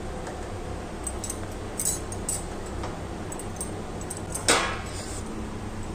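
Light clinks of a stainless steel pot as fried fish pieces are picked out of it by hand, over a steady low hum. A louder clank comes about four and a half seconds in.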